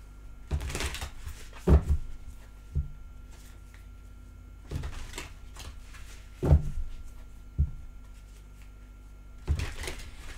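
A deck of tarot cards being shuffled by hand in short rustling bursts, with several dull knocks as the deck is tapped down on the table.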